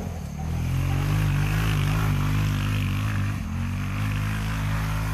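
Hammerhead GTS 150 go-kart's 150cc single-cylinder engine running under throttle. It picks up about half a second in and holds a steady note, easing briefly a little past the middle.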